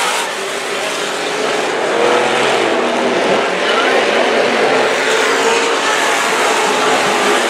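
Dirt-track hobby stock cars racing, their engines running hard. Several engine notes overlap and rise and fall as the cars pass and go into and out of the turns.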